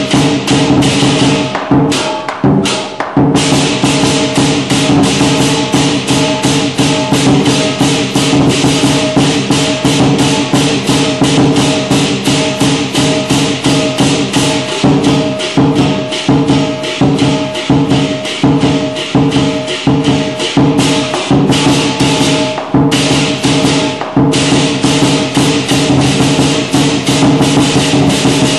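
Chinese lion dance percussion music: drum, cymbals and gong beating a fast, steady rhythm of about three to four strokes a second under a ringing gong tone.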